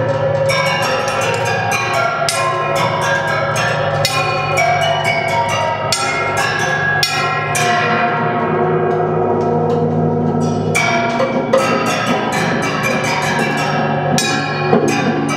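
Experimental improvised music on homemade instruments: a dense run of rapid struck notes that ring on, over a steady low drone that thins about eleven seconds in.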